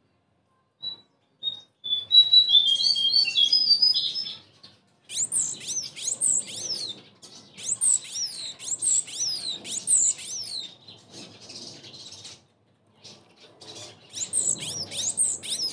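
Cinereous tit (gelatik batu) calling and singing. A few short high notes lead into a rapid run of notes, then bursts of fast, high notes, many sweeping downward, with short pauses between phrases.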